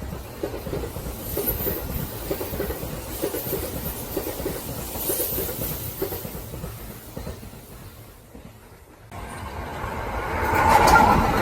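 Kintetsu electric train running past with a clickety-clack of wheels over rail joints, fading away over about eight seconds. About nine seconds in the sound changes abruptly, and a louder train passage builds up with a ringing whine near the end.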